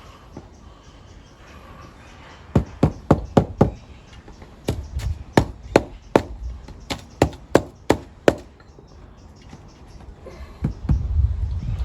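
Repeated sharp knocks: a quick run of about five, a short pause, then about nine more at roughly two or three a second. A louder low scraping rumble follows near the end.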